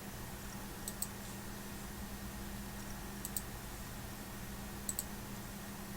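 Three pairs of sharp double clicks, about two seconds apart, over a steady low hum.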